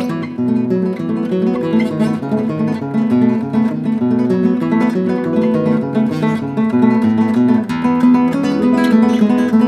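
Background music: an acoustic guitar playing a continuous run of plucked and strummed notes.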